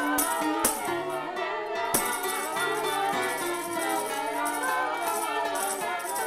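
Instrumental background music with a moving melody over sustained lower notes, with a couple of sharp percussion strikes in the first two seconds.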